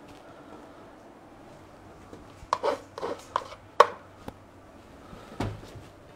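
Metal spoon knocking and scraping wet cat food into a plastic food bowl: a quick run of sharp knocks, then a single dull thump about five seconds in.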